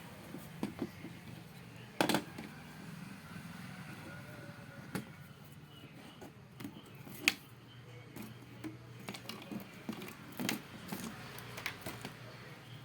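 Scattered sharp clicks and light knocks from hands handling parts while connecting the new motherboard inside an LED TV. The two loudest come about two seconds in and about seven seconds in, over a faint low hum.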